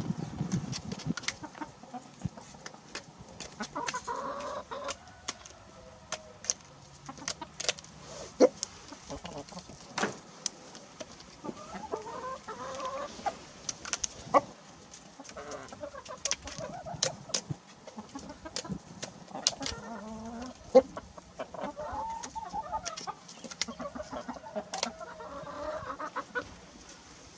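A rooster pecking food from a person's hands, with many sharp irregular pecking taps, and soft clucking calls now and then between the pecks.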